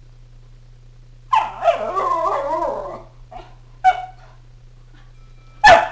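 Schnauzer barking excitedly: a long, wavering howl-like call, then two short barks, the last one the loudest.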